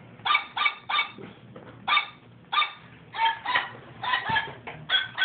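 About a dozen short, pitched toy-dog barks and yips come in an uneven rhythm, their pitch shifting from bark to bark like a tune played on barks.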